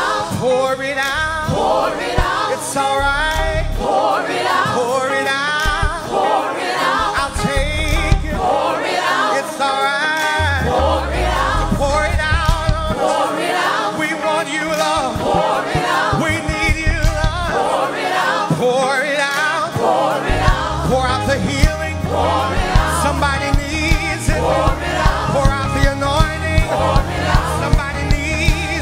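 Live gospel worship music: a choir singing with the band. About two-thirds of the way through, the bass comes in strongly and a steady beat follows.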